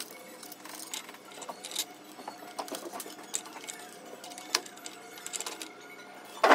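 Steel roller chain links clicking and rattling against the sprockets as the primary chain of a 1961 Royal Enfield Bullet 350 is worked onto the engine sprocket and clutch by hand. It is an irregular run of small metallic clicks, with a sharper knock at the very end.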